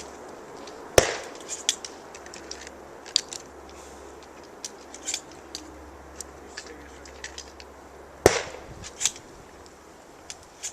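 Two shotgun shots about seven seconds apart, each with a short echo, with smaller clicks and knocks between them.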